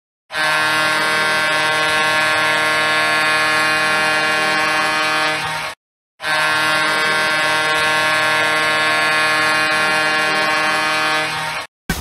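Dayton Bombers 2008–09 hockey goal horn, an air horn, sounding two long steady blasts of about five seconds each with a short break between them.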